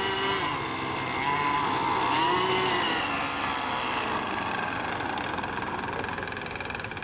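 Radio-controlled racing boat engines whining, their pitch rising and falling as the boats speed up, ease off and pass, and fading near the end.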